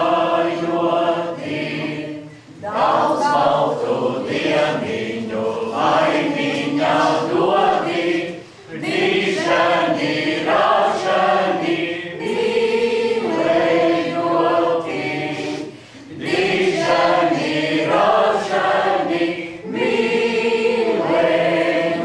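A small group of women singing a Latvian folk song unaccompanied, in sung lines of a few seconds each with short breaths between them.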